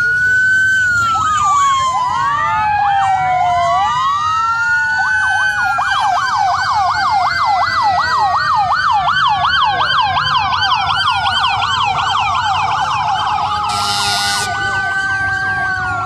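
Several emergency-vehicle sirens sounding at once, with slow rising and falling wails overlapping. A fast yelp joins from about six seconds in to about fourteen seconds, and a short burst of hiss-like noise comes just before the end.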